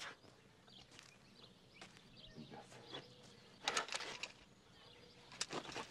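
Quiet outdoor film-scene ambience with faint scattered bird chirps and soft small sounds, a little louder a few seconds in.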